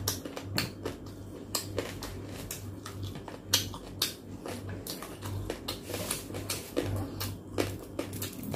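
Close-up eating sounds of a person chewing roast pork leg (lechon pata) with an open mouth: irregular wet mouth clicks and smacks, with a few sharper clicks.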